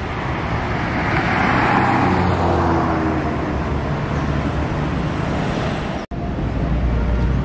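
Road traffic: a vehicle passes, its tyre and engine noise swelling and then fading with a falling engine tone over the first three seconds or so. About six seconds in the sound cuts out for an instant, then a steady low engine rumble follows.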